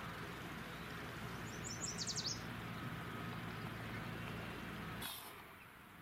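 Yellow warbler singing one short song, a quick run of high sweet notes ending in a few rapid slurred notes, about a second and a half in. A steady low background rumble runs under it.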